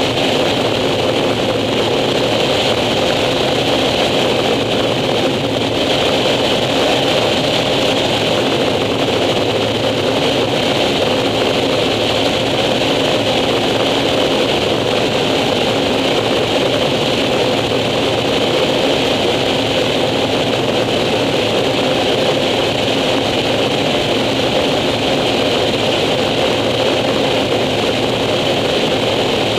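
Air Tractor 402B's Pratt & Whitney PT6A turboprop engine and propeller running steadily in flight, heard from the cockpit: a constant drone with a high whine over it.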